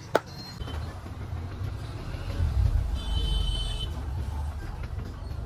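Road traffic: a steady low engine rumble with a short, high horn toot about three seconds in, and one sharp click right at the start.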